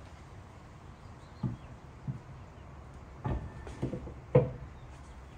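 Large off-road wheel and tire being lifted onto the truck's rear hub, knocking against the hub and wheel studs in a handful of dull thumps, the loudest near the end as it seats.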